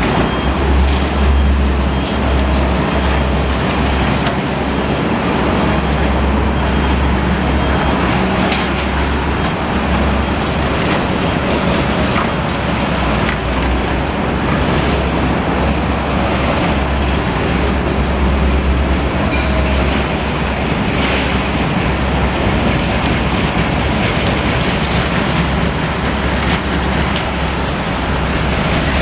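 Steady road traffic noise as cars pass close by, over a loud, continuous deep rumble.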